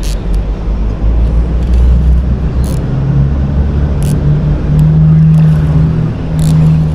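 An engine running with a low rumble, its pitch stepping up a couple of times, with a few sharp clicks over it.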